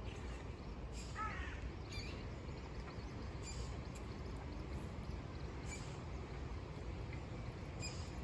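A single harsh, crow-like bird call about a second in, then a few faint high chirps, over a steady low background hum of outdoor noise.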